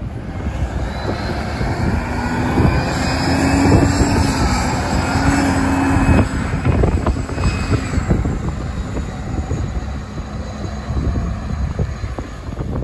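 A bus engine passing by, rising to its loudest around four to six seconds in and easing away after about eight seconds.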